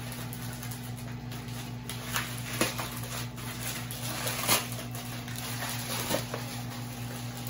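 A plastic courier pouch being torn and crinkled open by hand: a few short, sharp rips and rustles, over a steady low hum.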